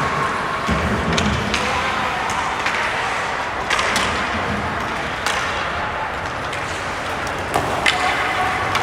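Ice hockey play: a steady wash of rink and crowd noise with about six sharp clacks of sticks and puck spread through it.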